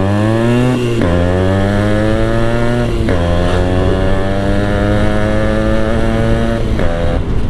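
Yamaha RX135's single-cylinder two-stroke engine, on its stock exhaust, accelerating hard through the gears. Its revs climb, then drop sharply at each upshift: about a second in, about three seconds in and near seven seconds in.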